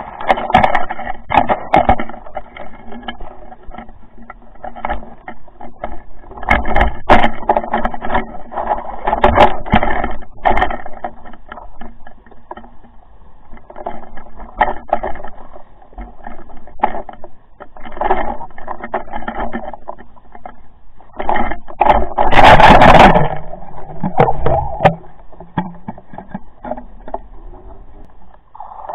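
Underwater audio of a camera housing knocking and rattling in irregular muffled clatters as it swings and bumps, over a steady hum with several tones. A louder rushing burst comes about three-quarters of the way through.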